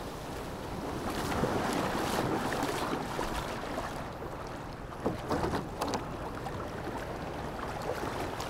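Small waves washing and lapping over sand in shallow sea water, with wind buffeting the microphone. A few short sharp sounds come about five seconds in.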